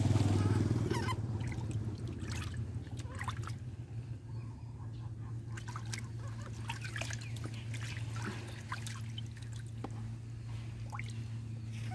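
Water in a basin splashing and trickling as hands scoop and rub it over baby monkeys, in short irregular splashes that are loudest in the first second. A steady low hum runs underneath.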